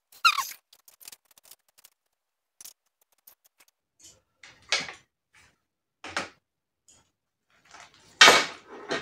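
Gearbox shafts and gears of a 1991 Honda CR250R two-stroke engine clicking and knocking against each other and the aluminium crankcase half as they are fitted by hand. The sounds come singly, a second or more apart, with the loudest knock near the end.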